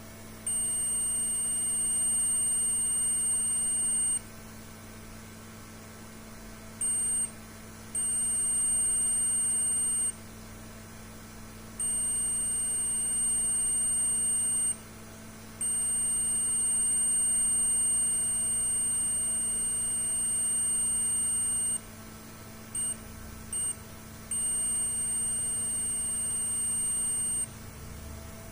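An electronic beeper sounding a steady high-pitched tone in irregular stretches, some a few seconds long, one about six seconds, and two brief blips, over a steady low electrical hum.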